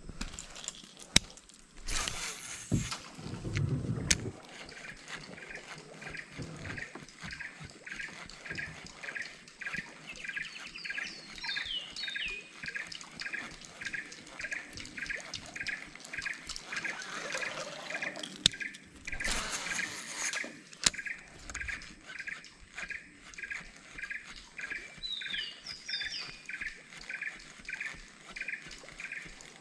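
Mangrove-creek ambience: a short note repeating steadily about twice a second, with a couple of short falling bird-like calls. A few sharp clicks and two louder rushes of noise, about two and twenty seconds in, break through it.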